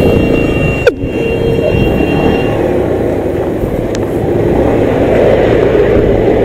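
Motorcycle running with a steady, dense rumble, and a single sharp knock about a second in.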